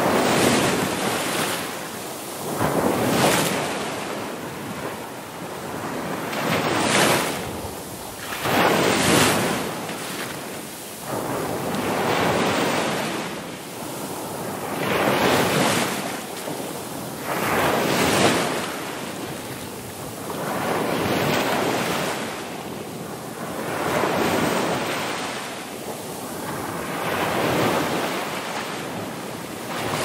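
Ocean surf: waves breaking and washing in one after another, each a swell of rushing noise that rises and fades every two to four seconds.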